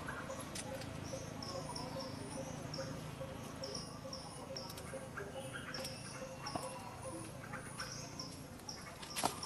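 Outdoor ambience: a long run of short, high chirps repeating about three times a second from a small animal calling, over a steady low rumble, with one sharp click near the end.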